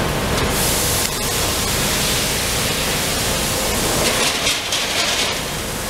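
Amada Pega 357 CNC turret punch running: a loud, steady machine noise with a few sharp clicks.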